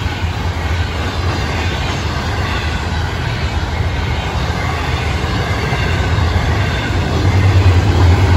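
Intermodal freight train cars rolling past: a steady rumble of steel wheels on the rails, growing a little louder near the end.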